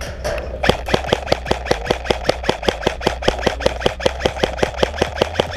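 Airsoft gun firing a quick, even string of single shots, about six a second, for close to five seconds.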